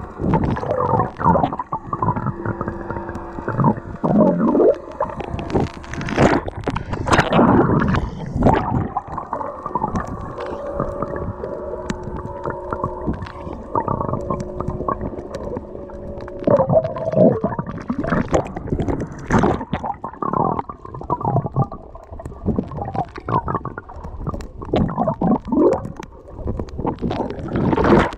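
Muffled underwater sound picked up through a waterproof camera housing: water gurgling and sloshing, with irregular knocks and rustles as the camera moves among the rocks, and a few faint steady hums. Near the end it brightens into splashing as the camera breaks the surface.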